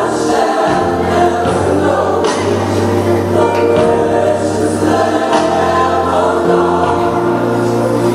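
Recorded gospel music: a choir singing a slow song over instrumental backing, with held chords and a bass line that moves every second or so.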